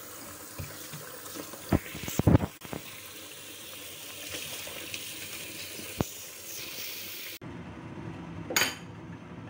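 Tap water running into a metal bowl in a stainless-steel sink as puffy fried tofu is rinsed and squeezed, with a few sharp clatters about two seconds in and another near six seconds. The water cuts off suddenly about seven seconds in, leaving a low rumble.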